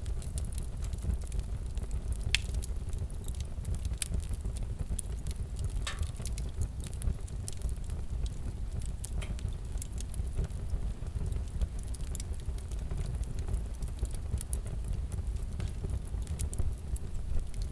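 Fireplace fire crackling: a steady low rumble of burning with irregular sharp crackles and pops scattered throughout.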